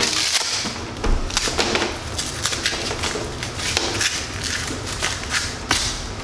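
Surf leash being put on: the leash cord knocking on a wooden floor and the Velcro ankle cuff ripping open and pressed shut, a series of short rasps and knocks.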